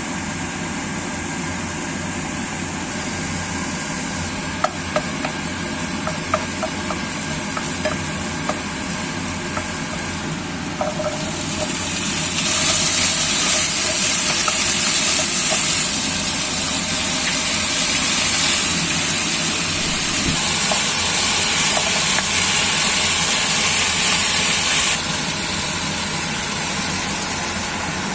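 Food sizzling in a frying pan, with a few light clicks of a utensil stirring in the pan. Partway through the sizzling grows louder and brighter, then eases back near the end.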